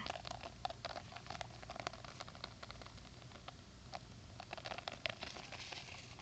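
Small plastic toy figurines tapped, hopped and scraped on rough asphalt, giving faint irregular ticks and clicks.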